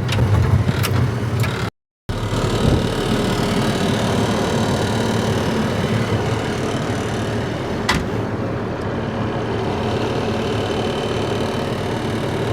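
Engine idling steadily, with a single sharp click about eight seconds in.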